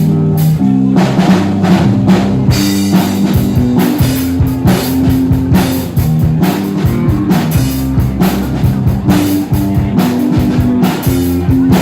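Live rock band playing, with guitar and bass notes held over a drum kit that comes in about a second in, cymbals joining soon after.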